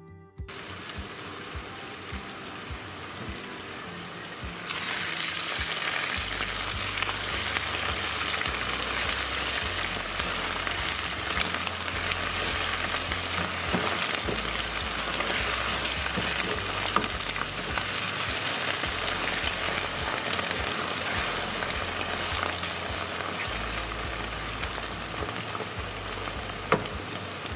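Sliced onions sizzling as they fry in oil in a nonstick pan, stirred with a wooden spatula. The sizzle gets louder about five seconds in.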